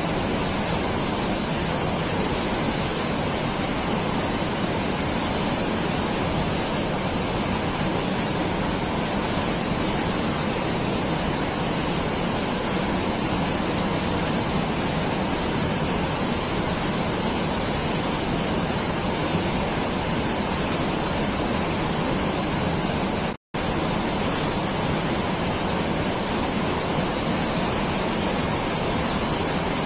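Steady, even rushing of water, with a brief drop to silence about 23 seconds in.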